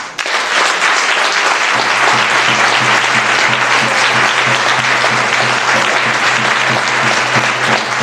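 Audience applauding. A steady low tone comes in about two seconds in and holds under the clapping.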